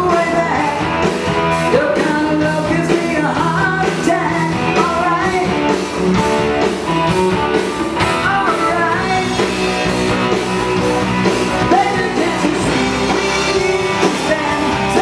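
80s rock band playing live: a male singer over electric guitar, bass and drums with a steady beat.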